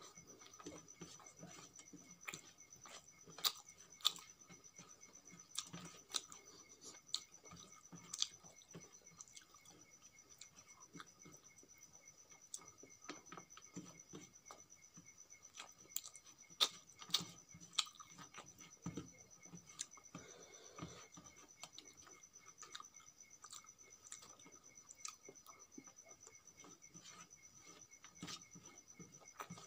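Close-miked eating sounds: fingers mixing rice and tomato chutney on a steel plate, and mouth chewing, with scattered sharp clicks and wet smacks.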